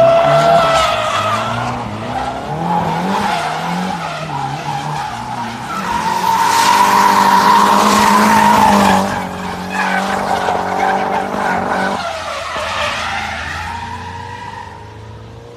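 Nissan S15 Silvia's SR20 four-cylinder engine revving up and down while drifting, with the tyres squealing. The squeal is loudest a little past the middle and fades toward the end.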